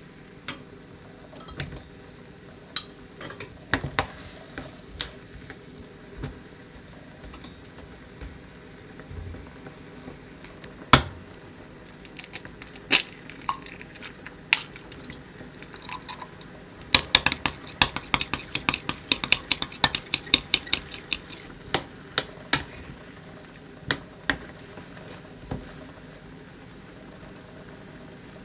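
Chopsticks clicking and tapping against a stainless steel pan while stirring, in scattered single strikes. About halfway through comes a run of rapid, even clinks lasting about four seconds: chopsticks beating eggs in a glass cup.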